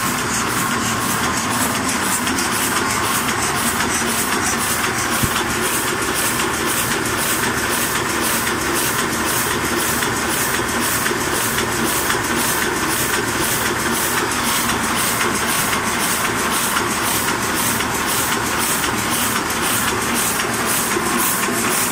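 Heidelberg GTO 46 sheet-fed offset printing press running, a steady mechanical clatter with an even, fast rhythm from its cycling mechanism.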